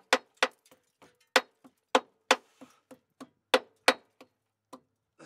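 Small hammer tapping on a steel exhaust hanger under a van, knocking it into place. About seventeen sharp metallic taps come at an uneven pace of roughly three a second, some hard and some light, each with a short ring.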